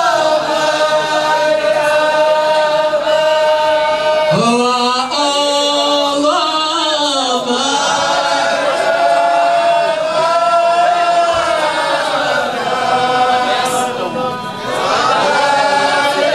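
Men's voices chanting a moulidi, the Mawlid devotional chant, together in long held notes. About four seconds in, another voice slides in from low pitch.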